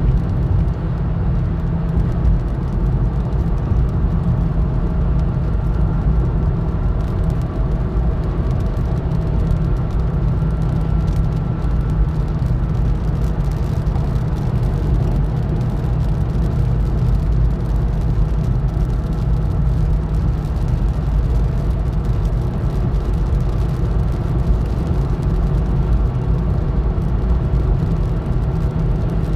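Steady road noise inside a car's cabin at highway speed, 76 to 80 mph: a constant low rumble of tyres and engine with wind noise, unchanging throughout.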